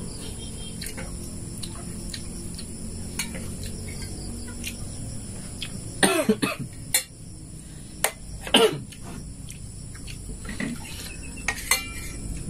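A man coughing, in a short fit about six seconds in and again about two and a half seconds later, set off by chili he sipped with the soup. Light clinks of spoons on plates sound between the coughs.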